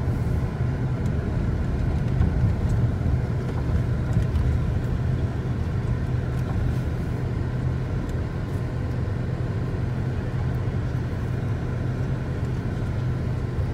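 Engine and road noise of a car driving slowly, heard from inside the cabin: a steady low rumble.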